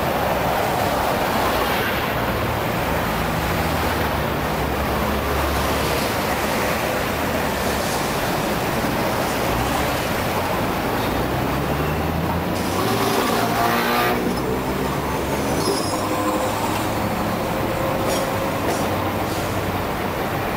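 Street traffic of double-decker trams and buses running, a steady mix of engine hum and road noise. About twelve seconds in, a vehicle accelerates, its motor whine rising in pitch for a couple of seconds.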